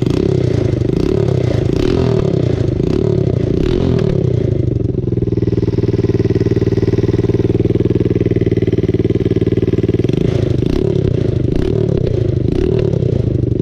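Freshly swapped 110cc single-cylinder ATV engine with a straight pipe, running on its first startup. It is blipped up and down repeatedly for the first few seconds, held at a steady, fairly fast speed through the middle, then blipped again near the end.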